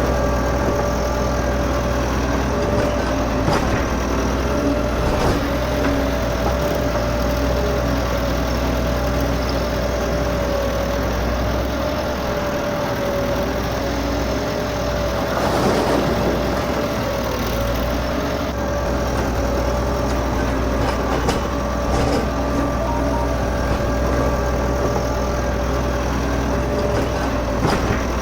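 Miniature model road roller's motor running steadily, an even engine-like hum with a held whine. A brief scraping or rustling swell comes about halfway through.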